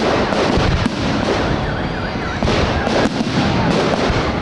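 Aerial fireworks display: a dense, continuous crackle of bursting shells, broken by a few sharper bangs.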